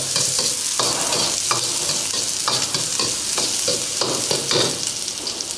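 Sliced shallots and garlic sizzling in hot oil in a metal wok while being stir-fried. A metal wok spatula scrapes and clicks against the pan at an irregular pace.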